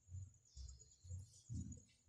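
Faint handling noise: soft irregular low thumps and light scrapes, over a steady faint high-pitched whine.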